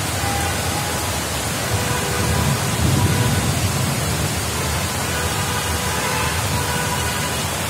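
Heavy rain falling steadily, a dense, even hiss. A low rumble swells about three seconds in and dies back.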